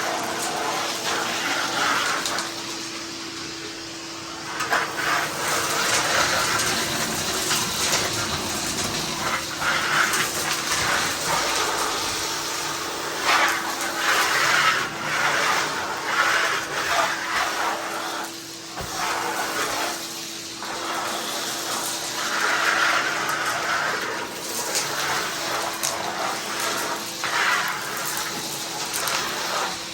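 Ridgid 16-gallon wet/dry shop vac running: a steady motor whine over rushing air. Every few seconds the noise surges with a rattling hiss as chunks of cement and debris are sucked up the hose.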